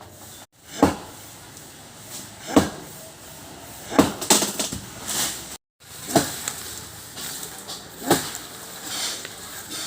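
Heavy chopping blows into wood, a sharp strike every one and a half to two seconds, with a pair of quick blows about four seconds in.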